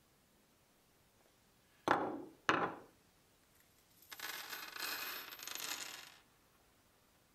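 Two sharp knocks, about half a second apart, then a handful of small metal upholstery nails poured onto a wooden workbench, clattering for about two seconds.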